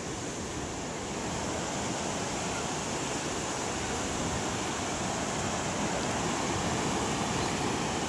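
Ocean surf breaking on a sandy beach: a steady rush of waves.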